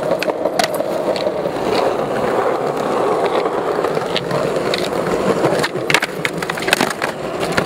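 Skateboard wheels rolling over stone paving in a steady rumble, with sharp clacks of the board against a concrete ledge about six seconds in.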